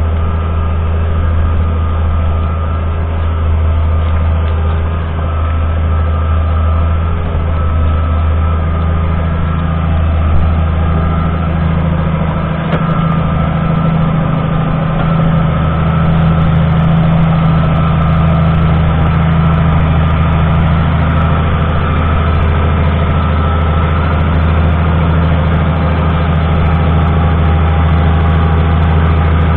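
Lamborghini R6.140 DCR tractor's 6.1-litre six-cylinder diesel engine running steadily with a deep, even drone, easing slightly for a moment about twelve seconds in.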